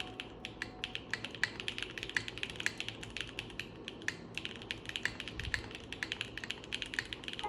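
Fast, continuous typing on a Neo87 mechanical keyboard fitted with Kailh BCP switches and Cherry OG keycaps: a rapid run of sharp key clacks, many a second.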